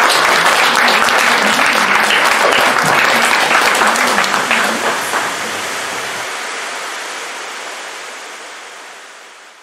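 Audience applauding, many hands clapping at once. After about five seconds the clapping thins into an even hiss that fades out gradually.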